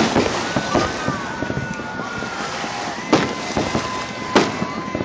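Aerial fireworks shells bursting with sharp booms, the strongest just after the start and about three and four and a half seconds in, over a steady outdoor hiss of wind and surf.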